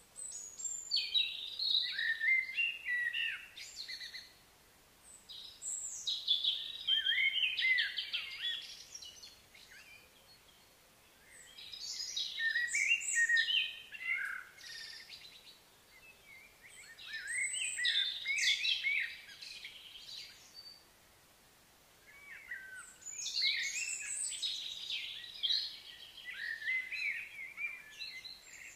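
A songbird singing five long, varied phrases of a few seconds each, with short pauses between them.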